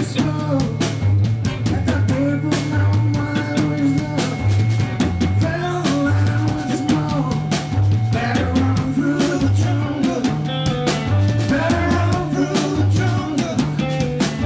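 Background rock music with a steady drum beat and a moving bass line.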